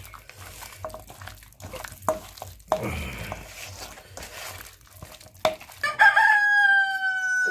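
A rooster crows once from about six seconds in: a long, held call that falls slightly at the end and is the loudest sound here. Before it come soft clicks and rubbing from hands working marinated chicken pieces in a steel bowl.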